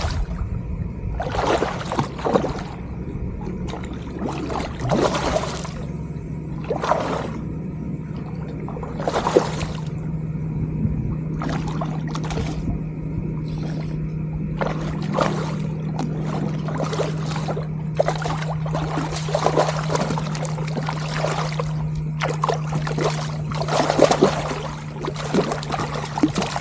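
Water splashing and sloshing in irregular surges beside a kayak as a hooked black drum is played to the boat on light tackle, over a steady low hum.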